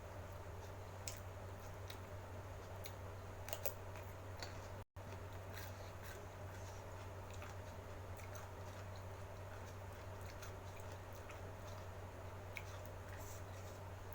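Close-miked chewing of food, with scattered small crunches and wet mouth clicks over a steady low hum. The audio cuts out briefly about five seconds in.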